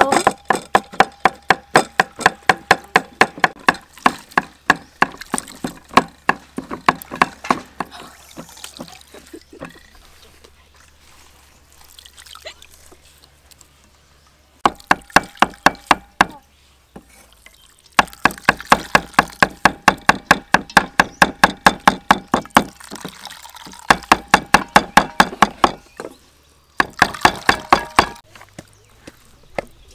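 Wooden pestle pounding lemongrass, garlic and chilli in a wooden mortar for curry paste: several runs of steady knocks, about four to five a second. Between the runs, quieter wet squelching and dripping as grated coconut is squeezed by hand through a strainer.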